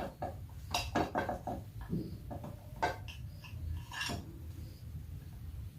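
A knife clinking and knocking against a plate in a quick, uneven run of strikes over the first four seconds, as stuffed bread is cut into pieces.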